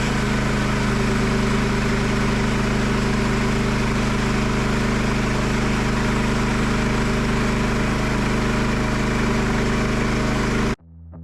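Engine running steadily at a constant speed, with an even hum and a hiss over it; it cuts off abruptly near the end and electric guitar music starts.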